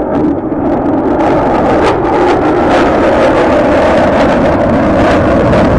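F-35B Lightning II fighter jet passing low overhead, its engine noise loud. The noise builds over the first half-second, then holds steady.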